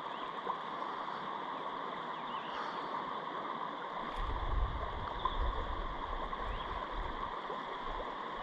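River water flowing over riffles, a steady rushing hiss. A low rumble joins for a couple of seconds about four seconds in.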